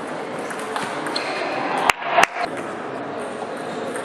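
Table tennis ball clicking off paddles and the table during a rally, with two loud, sharp clicks about two seconds in, over the echoing murmur of a large sports hall.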